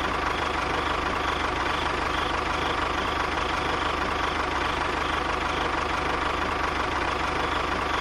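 Tractor engine running steadily at an idling pace, a fast, even chug.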